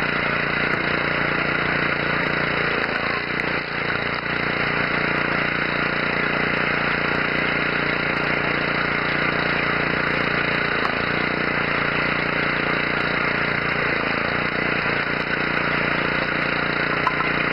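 Belt-driven screw-cone log splitter running steadily: its drive motor turning the pulley and spinning threaded cone.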